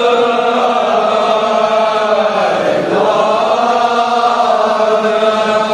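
A group of men chanting a Kashmiri marsiya, a mourning elegy, in chorus, with long held notes that dip and rise in pitch about halfway through.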